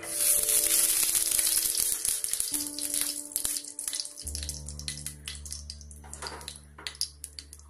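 Ghee sizzling in a hot non-stick frying pan as a spatula spreads it: a loud hiss that starts suddenly and fades over a few seconds into scattered crackles and pops.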